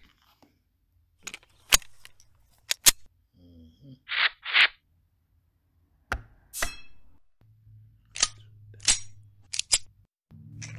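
Plastic cleaning-product bottles handled close to the microphone: a series of sharp clicks and knocks, with two short hisses like quick sprays about four seconds in.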